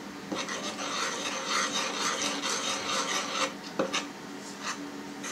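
A fork scraping and stirring flour in a mixing bowl, mixing it into the yeast starter for dough: a continuous rasping rub for about three seconds, then a couple of light taps.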